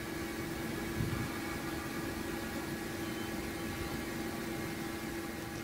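Steady hiss with a low, steady hum tone underneath: constant background noise with no distinct events.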